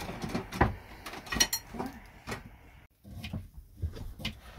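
Irregular knocks, bumps and rustling of someone moving about and climbing up onto an over-cab bunk bed, with five or six separate thumps.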